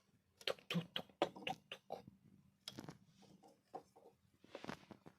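A run of quick, light knocks, several in a row, then a few scattered taps: a knock at the door.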